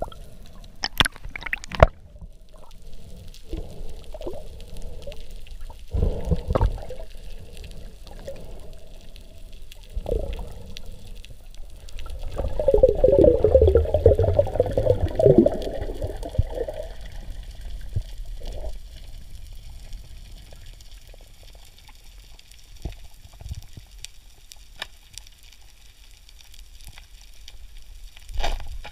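Water gurgling and sloshing, with a few sharp knocks in the first ten seconds and a louder stretch of bubbling from about the middle lasting some four seconds.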